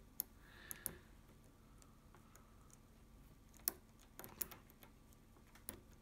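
A disc-detainer pick working inside an Abloy Classic padlock: faint, sharp metal clicks, about six of them at irregular intervals, as the tool is pushed to the back of the disc stack.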